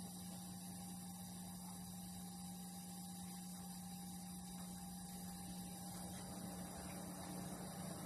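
Steady low electrical hum from an idle amplified speaker stack with no music playing. A broad rushing noise grows louder near the end.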